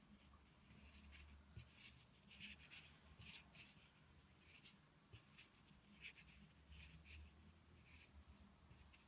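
Faint, irregular scratching and rustling of a crochet hook drawing cotton yarn through the stitches while working a run of double crochets.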